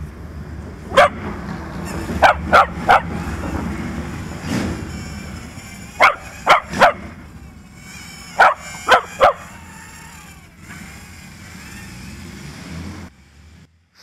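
A small dog barking sharply at a hovering toy quadcopter: one bark, then three quick runs of three barks. Under them runs the steady whir of the quadcopter's small motors.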